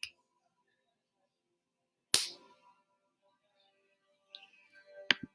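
A single sharp knock about two seconds in, with a few lighter clicks near the end, over faint background music.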